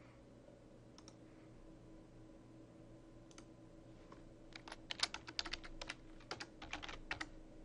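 Computer keyboard being typed on, faintly: a couple of single key clicks in the first few seconds, then a quick run of about a dozen keystrokes as a password is entered, over a low steady hum.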